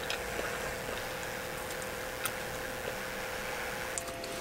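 Quiet steady background noise inside a small room with a constant faint hum, broken by a few small soft clicks.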